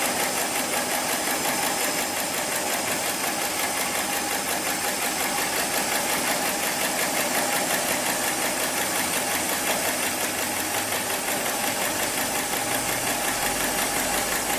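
Heavy-duty programmable pattern sewing machine running steadily, its needle mechanism stitching thick polyester or nylon sling webbing with a fast, even mechanical chatter.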